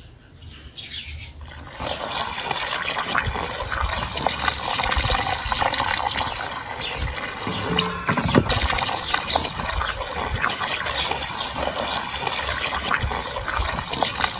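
Water poured in a stream into a metal basin of raw intestines and vegetable chunks, splashing over the pieces as they are washed by hand. It starts about a second and a half in and runs on steadily.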